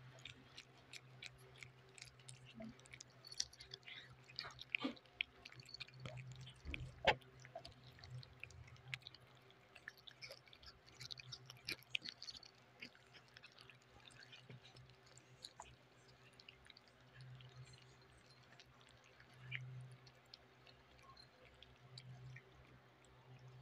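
Three cats chewing and licking soft cooked chicken and liver from plates, close to the microphone: many small wet smacks and clicks, with one sharper click about seven seconds in. A steady low hum runs underneath.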